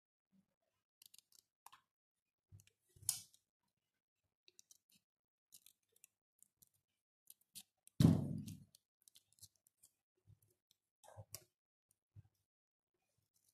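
Kitchen scissors snipping thin paper amid faint clicks and rustles of paper being handled and folded. A loud thump about eight seconds in, as the scissors are set down on the table, is the loudest sound.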